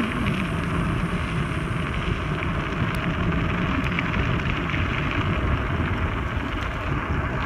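Steady rumble and hiss of a bicycle riding along a sandy gravel road: tyres rolling over loose grit, with wind on the phone's microphone.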